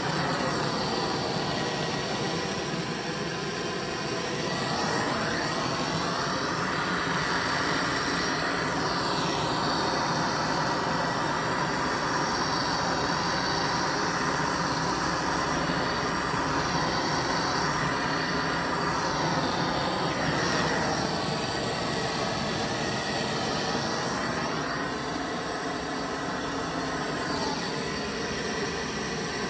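Handheld gas torch burning with a steady hiss, its tone sweeping slowly up and down several times as the flame is moved about.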